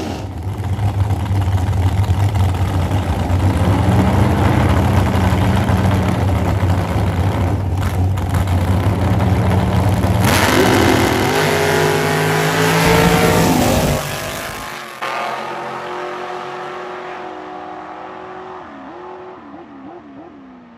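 Drag race car engines at full power, loud and steady, then revving higher with rising pitch from about ten seconds in. Near fourteen seconds the sound drops off sharply and fades away, with a few short dips in pitch near the end.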